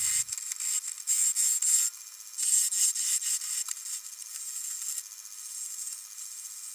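A turning gouge cutting a large wooden blank spinning on a lathe: a hissing, scraping sound of shavings peeling off, in uneven surges that drop back about two seconds in, then go on lower and steadier through the second half.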